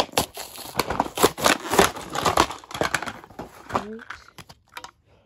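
Clear plastic blister packaging crinkling and crackling as toy train pieces are pulled out of it, dense for about three and a half seconds, then thinning to a few clicks.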